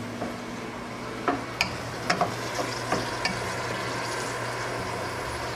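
Ground beef and tomatoes sizzling in a pot while a wooden spoon stirs them, with several sharp knocks of the spoon against the pot in the first few seconds.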